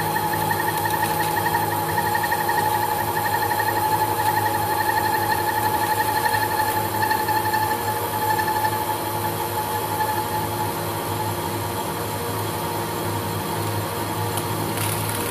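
Holbrook C8 metal lathe running while its tool takes a spring cut along a short bar of hard metal turned without a tailstock centre: a steady drive hum with a whining cutting tone that fades after about eight seconds.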